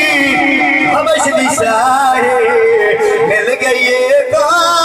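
A man singing a drawn-out, wavering melismatic line of a Punjabi devotional song (manqabat to Ali), the pitch bending and ornamented without distinct words.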